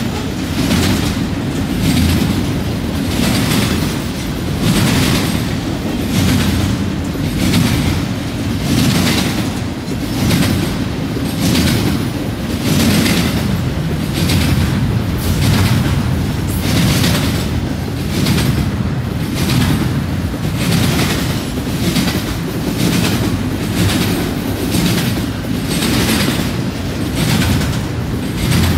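Double-stack container well cars of a freight train rolling past. A steady low rumble is broken by regular wheel clacks on the track, about one a second.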